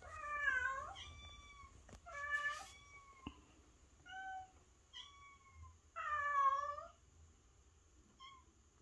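A young kitten meowing over and over: a string of high, bending cries, the loudest near the start and about six seconds in, with shorter calls between.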